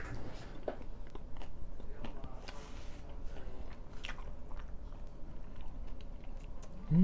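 A person biting and chewing paratha bread with egg close to the microphone: soft, scattered mouth clicks and small crunches. A brief low voice sound comes at the very end.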